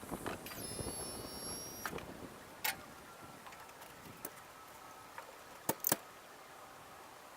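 Scattered sharp clicks and knocks, as of a machine's key and controls being worked, with a brief high-pitched electronic tone lasting about a second and a half from about half a second in.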